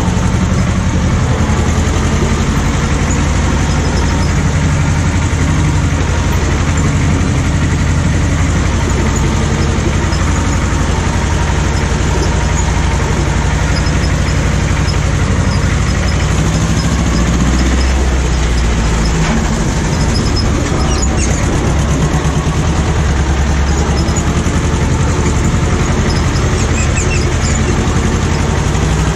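Ursus C-330M tractor's two-cylinder diesel engine running steadily, its low pitch shifting a little about halfway through and again a few seconds later.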